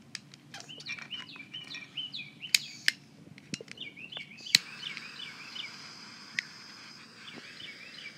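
Small birds chirping and singing over and over, with a few sharp clicks in the first half. A steady hiss starts with a loud click about halfway through.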